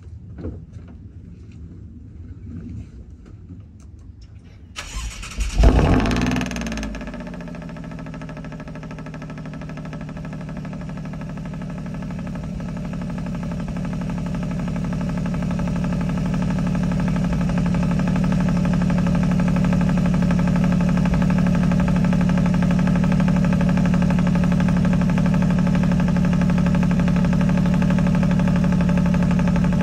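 Alfa Romeo Giulia Quadrifoglio's 2.9-litre twin-turbo V6 cold-starting, heard at the exhaust. After a few quiet seconds the engine cranks and fires about five seconds in with a loud flare of revs that drops back to a steady high cold idle. The idle grows louder over the next ten seconds or so, then holds steady.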